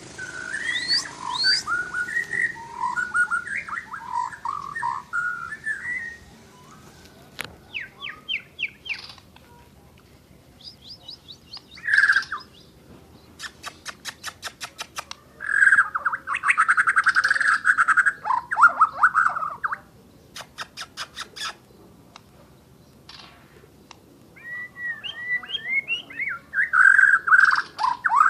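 White-rumped shama singing in bursts: varied whistled phrases, rapid ticking trills and harsh chattering notes, with short pauses between phrases.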